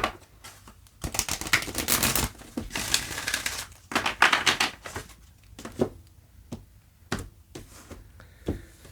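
Tarot deck being shuffled: three crackling bursts of cards riffling together over about four seconds, followed by a few single light knocks as the cards are handled.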